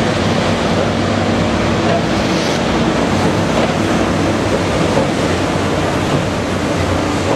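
Caterpillar 320DL excavator's diesel engine running steadily at working revs: a constant, loud drone with a low hum under it.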